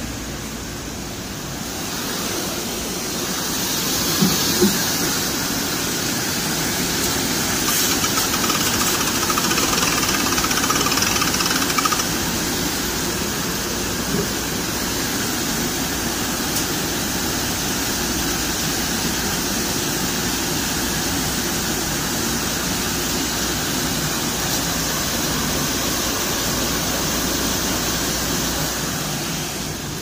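Industrial crate washing machine running with its chain conveyor moving: a loud, steady mechanical rush that swells over the first few seconds, with a couple of short knocks about four seconds in.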